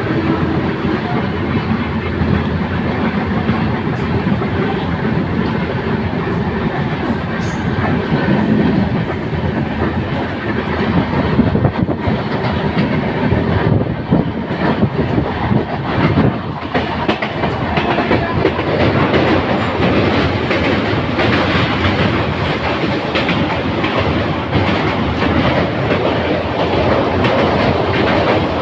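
Passenger train running at speed, heard from an open coach window: steady rumble with wheels clattering on the rails. In the second half the sound grows brighter and more rattling as the train runs onto a steel truss railway bridge.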